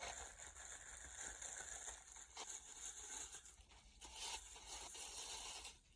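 Faint rustling, crinkling and tearing of packaging as a small item is unwrapped.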